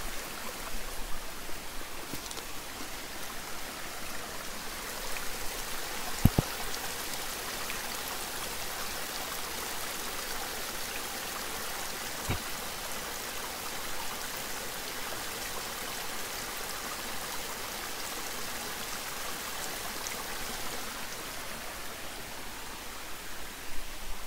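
Steady rushing of running water from a small mountain stream, with one sharp knock about six seconds in and a softer one about twelve seconds in.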